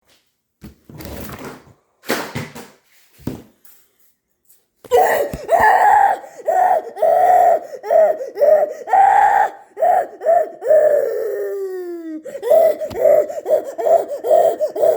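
A high-pitched, wheezing laugh in rapid repeated pulses, after a few seconds of breathy huffs. About twelve seconds in it trails off in a long falling squeal, then the pulsing laugh starts again.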